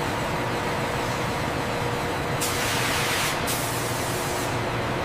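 Industrial machining equipment running with a steady hum and faint steady tones, with two bursts of spraying hiss about two and a half and three and a half seconds in.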